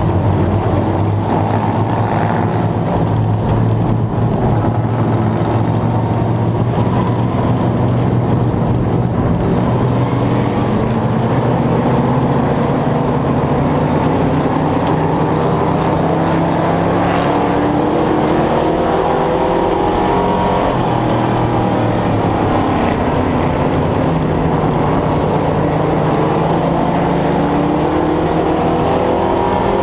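Vintage dirt-track race car's carbureted engine heard from its own hood, running loud. Its pitch holds steady for the first part, then rises and falls in the second half as the throttle comes on and off.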